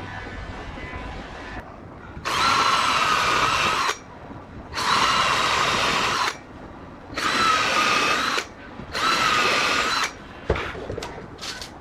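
Small electric power tool motor switched on and off four times, each run lasting about a second and a half with a steady whine. A few sharp clicks and a knock follow near the end.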